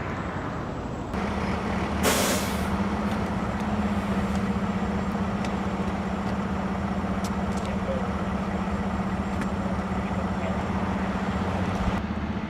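A vehicle engine running with a steady low drone, with a short burst of hiss about two seconds in.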